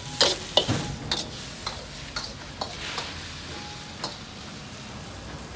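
Metal wok spatula clanking and scraping against a steel wok as fried noodles are tossed over the burner, with a fading sizzle. Several sharp clanks in the first second, then lighter clinks about every half second.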